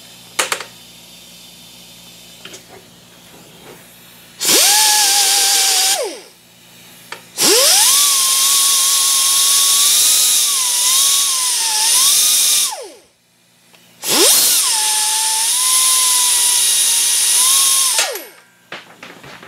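Small die grinder with a sanding disc run in three bursts, a short one then two longer ones, each spinning up to a high whine over a hiss and winding down at the end. Its pitch sags as the disc bears on a small piece of sheet steel, sanding it down to fit a hole.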